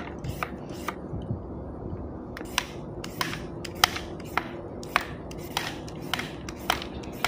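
Unripe green papaya being shredded with a hand-held julienne peeler: a series of short, crisp scraping strokes, about two to three a second, with a brief pause about a second in.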